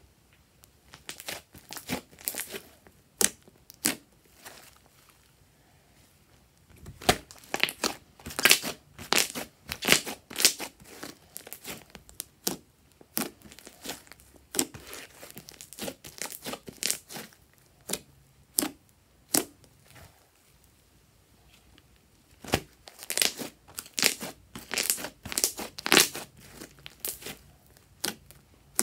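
Hands stretching, folding and pressing fluffy slime: bursts of sticky clicks and crackles, with short pauses between.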